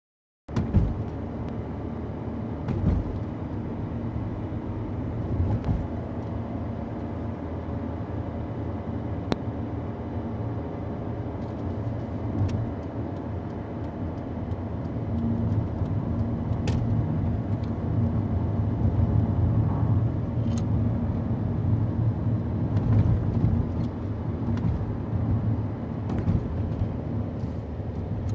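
Steady engine and road noise of a moving car heard from inside the cabin: a low rumble with a few faint clicks.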